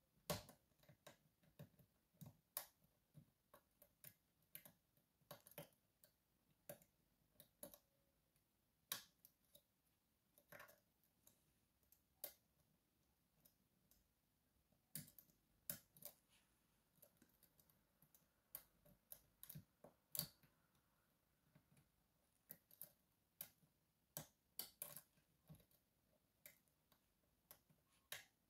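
Faint, irregular metallic clicks and ticks of a slider pick and tension wrench working the sliders of an Evva 3KS lock while it is being picked.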